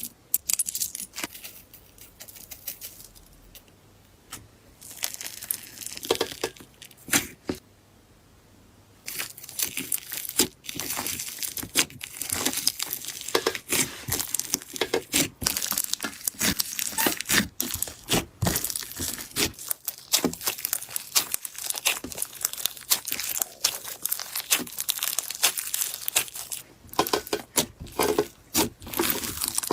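Slime being squeezed and poked by hand, giving a run of small crackles and pops. The first several seconds are sparse and quiet; from about nine seconds in the crackling is dense and steady.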